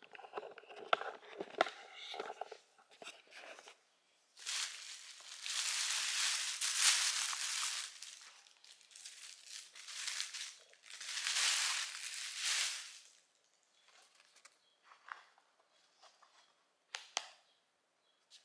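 Thin plastic carry-out bag crinkling and rustling as a takeout food container is pulled out of it, in two long loud stretches with shorter rustles between, then quieter handling with a few small clicks near the end.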